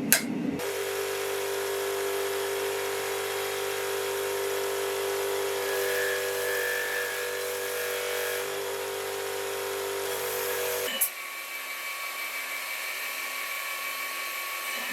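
A hammer blow on metal right at the start, then a small electric power tool motor running steadily with an even whine for about ten seconds. It stops with a click, leaving a fainter steady hiss with a high hum.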